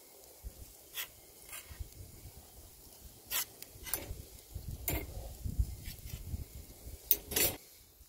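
Metal shashlik skewers clinking and scraping against a stainless steel pot as grilled pork pieces are pushed off them: several sharp metallic clinks, the loudest a little after seven seconds in.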